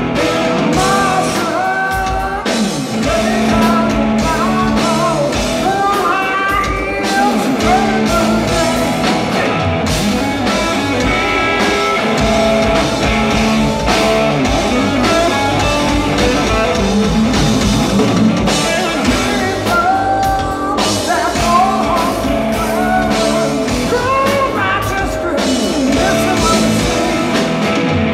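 Live rock band performing: a male lead singer over a Telecaster-style electric guitar, with bass and drums.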